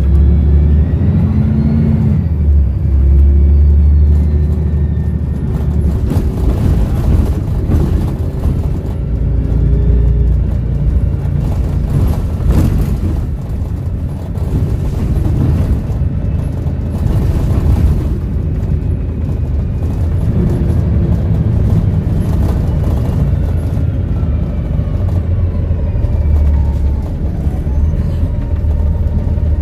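Volvo B7RLE bus's diesel engine running through changing speeds, with a high turbo whistle gliding up and down over the low engine hum.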